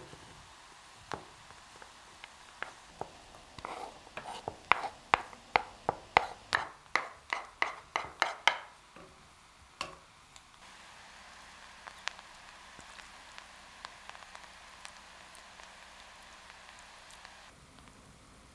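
A wooden spoon tapping and scraping diced vegetables off a wooden plate into a stone pot, building to a quick run of taps about three a second; then a steady faint hiss from the stone pot heating on a portable gas burner, which cuts off near the end.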